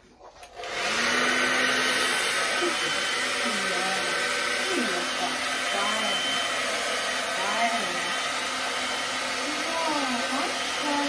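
Handheld hair dryer switched on about half a second in and then running steadily, blow-drying a wet dog's coat. A few short sliding whines sound over it from a few seconds in.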